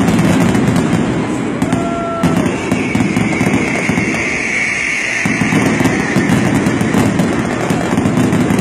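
Fireworks show: a dense, continuous run of bangs and crackling, with a few short whistles among them.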